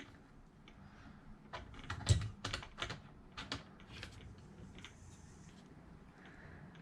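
Light clicks and taps of an RC car's electronic speed control and its wires being handled and set down into the plastic chassis, with a soft thump about two seconds in.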